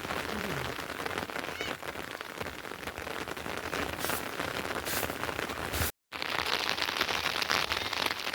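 Steady rain falling, a dense even patter, broken by a brief dropout about six seconds in.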